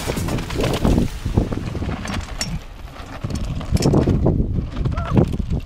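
Wind buffeting an action camera's microphone over the rattle and rumble of a mountain bike rolling fast down a rough dirt trail, with surges as it hits bumps and a short wavering tone about five seconds in.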